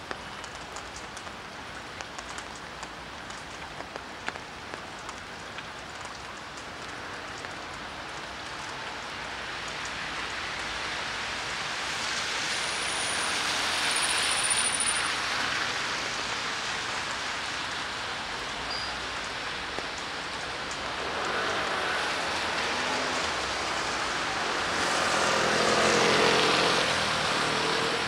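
Steady rain falling, with small ticks of drops at first. Vehicles pass on the wet street, their tyre hiss swelling about halfway through and again near the end, the second with an engine hum.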